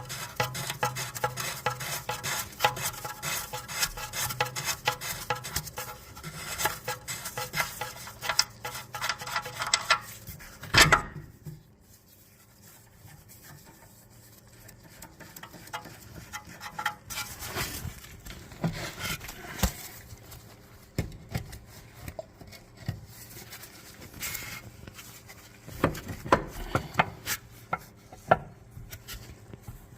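Metal tools and car parts clinking, rubbing and scraping during CV axle work, with one loud knock about eleven seconds in.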